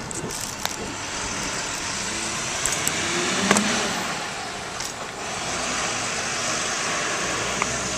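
Street traffic noise: a steady wash of road vehicles, growing louder as one passes about three and a half seconds in.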